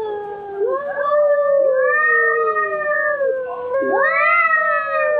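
Domestic cat yowling: long, drawn-out, wavering meows that rise and fall in pitch, with a sharp dip and rise about four seconds in.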